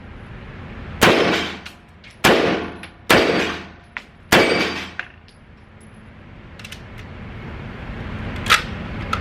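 Four rifle shots about a second apart, each with a short echoing tail, followed by a few fainter clicks and one more sharp crack near the end.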